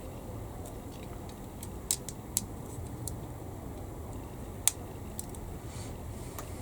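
Small sharp clicks and taps of plastic model-kit parts being handled and fitted, with three louder clicks: two close together about two seconds in and one near five seconds, over a low steady hum.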